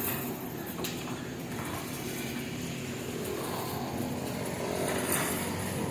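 A motor running steadily with a low, even hum, and a single sharp click about a second in.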